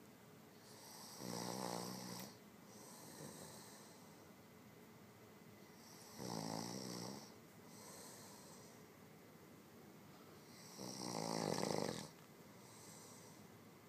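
A man snoring heavily through a wide-open mouth: three loud snores about five seconds apart, each followed by a softer airy breath.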